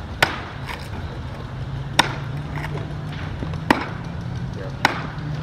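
Axe blows biting into an upright block of wood in a standing block chop: four sharp, loud strikes about a second and a half apart, with fainter knocks in between.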